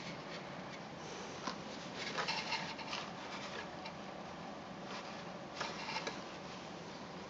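Light handling noise from hands and small tools working inside a cuckoo clock movement: a few short spells of faint clicking and rubbing, about two and six seconds in, over a steady background hiss.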